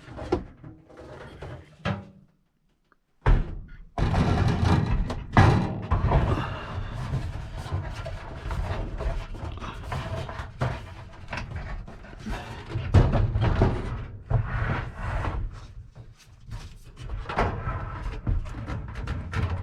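Repeated knocks, thumps and scraping as a scrap-lumber block and an RV microwave are shifted and pushed into place in a cabinet opening, with a brief gap near silence early on and the hardest knocks at about 4, 5 and 13 seconds in.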